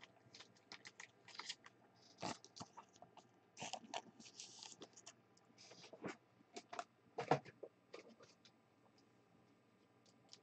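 Faint handling of trading cards and their packaging: scattered clicks, taps and short rustles as cards are set down and sorted, loudest twice, then dying away near the end.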